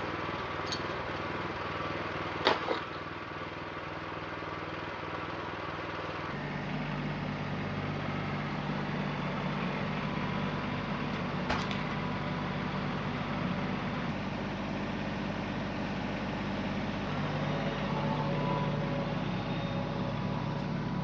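An engine running steadily, its low note shifting and growing fuller about six seconds in, with two sharp knocks.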